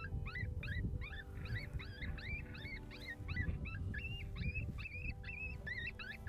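Predator call playing a rapid, repeating animal distress sound: short high cries that bend up and down in pitch, about three a second. Wind rumbles on the microphone underneath.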